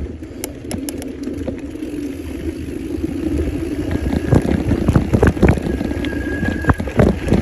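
Mountain bike rolling fast down a dry dirt singletrack: steady tyre and frame noise, with the bike rattling and knocking over bumps from about halfway through, and a brief high tone near the end.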